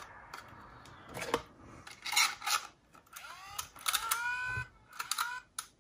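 Clicks and light plastic rattling from handling headphones and a cassette walkman, with a few short squeaks that rise in pitch about three to four and a half seconds in.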